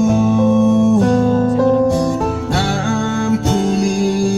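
A song with guitar and singing playing over a Proton X50's car audio system: its stock speakers with added front tweeters and 3-inch full-range drivers, run from a 4-channel DSP with 10-band EQ and no subwoofer.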